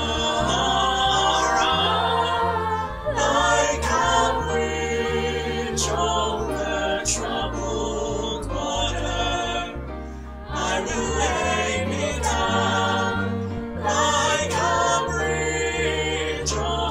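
Virtual choir of mixed young voices singing a song together, built from separate home recordings, over sustained low accompanying notes.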